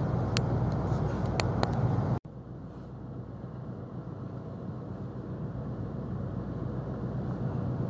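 Steady low hum of a moored ship's engine machinery, with three sharp clicks, cutting off about two seconds in. It gives way to a quieter, even outdoor noise that slowly grows louder.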